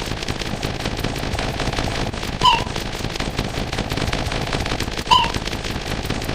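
Layered sound effects: a continuous dense crackle of rapid clicks, with a short, high yelp-like call recurring three times, about every two and a half seconds.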